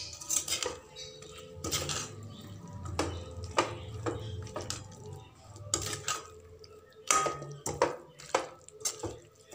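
A spoon scraping and knocking against a metal pan while stirring a thick, saucy fish-and-onion mixture, in irregular strokes with sharper clinks now and then.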